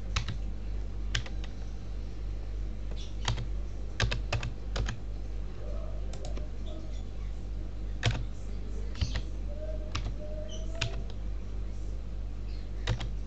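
Computer keyboard keys pressed one at a time while a PIN is typed, making scattered sharp clicks at irregular spacing over a steady low hum.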